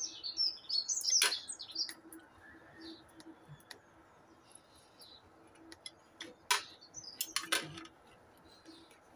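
Small birds chirping in short bursts, thickest in the first second and a half, with a few sharp clicks scattered through, the loudest about a second in and twice more near seven seconds; a faint steady low hum underneath.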